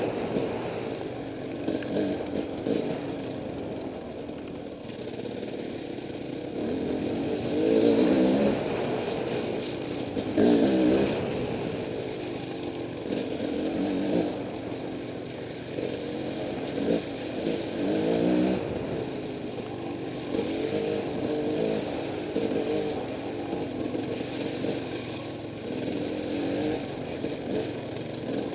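Dirt bike engine heard up close from the moving bike, revving up and down with the throttle; its pitch climbs in several short surges.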